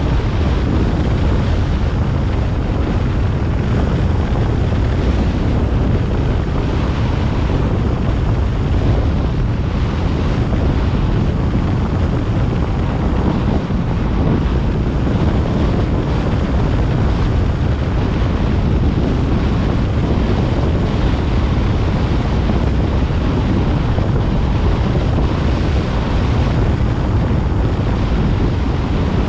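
Steady wind rush and road noise from a car driving along, with wind buffeting the microphone.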